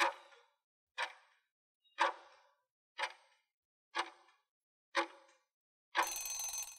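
Countdown-timer clock ticking sound effect, one sharp tick a second, six ticks, followed about six seconds in by a longer, louder sound of under a second marking the end of the countdown.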